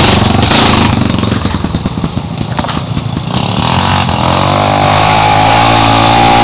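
Off-road motorcycle engine running under load: its note drops and turns uneven for a few seconds, then revs back up and holds a higher, steady note from about four seconds in.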